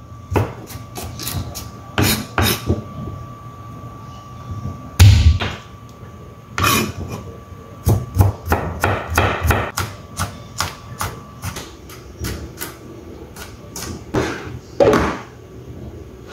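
Kitchen knife chopping garlic on a plastic cutting board: irregular sharp taps, at times several a second, with a few heavier knocks.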